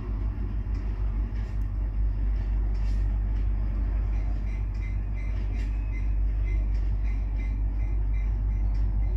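Diesel freight train passing: a deep, steady rumble with a scatter of sharp clicks, and from a couple of seconds in, a quick run of repeated ticks from the wheels on the rails.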